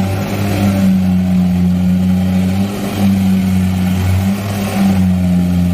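Kubota rice combine harvester's diesel engine running steadily under load, a loud even hum, as the machine works through soft mud in which it is getting bogged.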